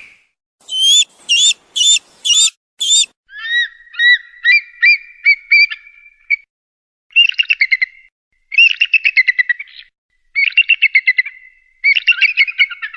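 Eagle calling. Five sharp, high whistled notes come first, then a quicker run of lower chirping notes. Several bursts of rapid chattering notes follow, separated by short pauses.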